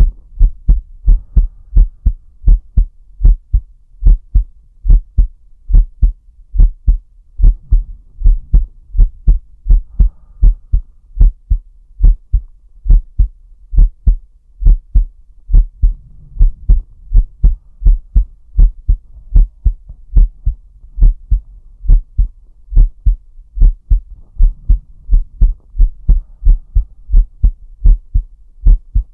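A man's heartbeat, heard close up: a steady, deep lub-dub about once a second.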